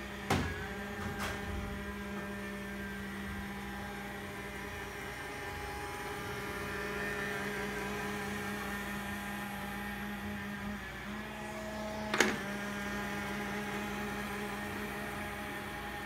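Automat RoboVac robot vacuum running, a steady motor hum whose pitch shifts slightly about eleven seconds in. Two small clicks come near the start and one sharp knock about twelve seconds in.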